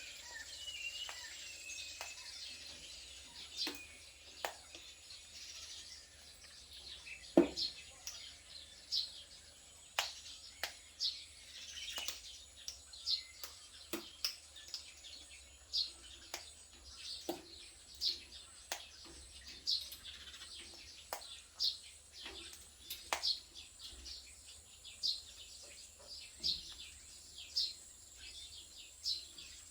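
Parrots chirping in short high calls, with sharp clicks and cracks about once a second from beaks biting into guava, over a faint steady hiss.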